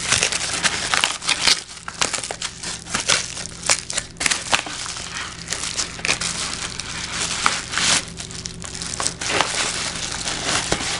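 Paper mailing envelope crinkling and rustling as hands dig inside it and pull out a small boxed item, a dense, irregular run of crackles.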